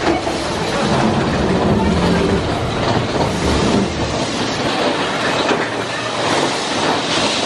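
Big Thunder Mountain mine-train roller coaster running along its track, heard from on board: a steady, dense rumble of the cars on the rails.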